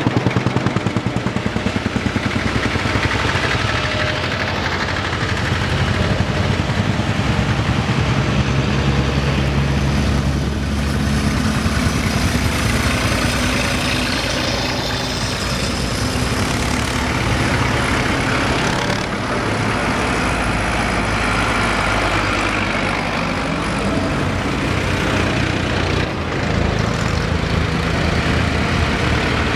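Vintage tractor engines chugging steadily as a line of old tractors drives past one after another, climbing a slope.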